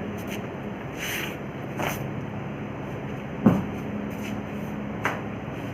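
A steady low hum, with a few short knocks and rustles over it; the loudest knock comes about three and a half seconds in.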